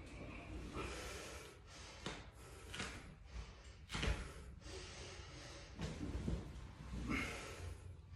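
Short, sharp breaths of a person lifting a loaded barbell for squats, with a thump about four seconds in.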